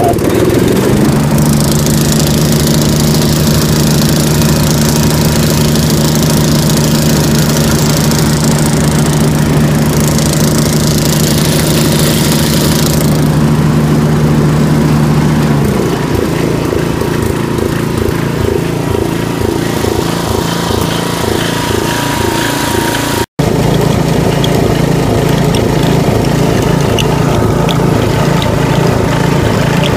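Snapper riding mower's 6.5-horsepower single-cylinder engine running at a steady speed, then dropping to a slower, pulsing beat about halfway through.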